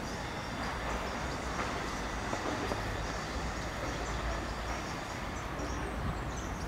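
Steady low rumble of vehicle traffic, with faint short high chirps in the second half.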